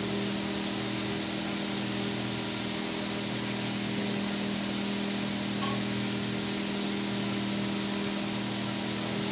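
Electric blower running steadily: a constant hum with a rush of air.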